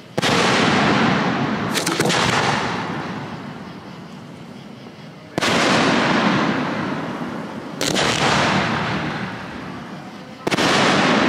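Aerial firework shells bursting, four big booms a few seconds apart, each followed by a long rolling echo that slowly fades. A quick pair of sharp cracks comes about two seconds in.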